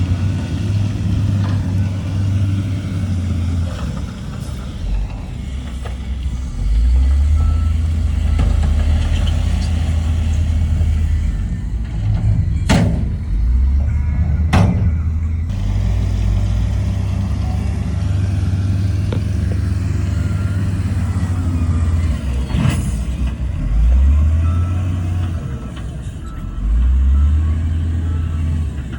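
Heavy diesel earthmoving machinery running, the engine revving up and down as it works, with a reversing alarm beeping at times and a few sharp knocks midway and near the end.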